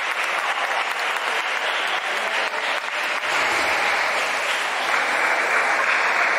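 Steady applause-like din of a crowded table tennis tournament hall: a dense, even patter with faint voices underneath, growing a little louder about halfway through.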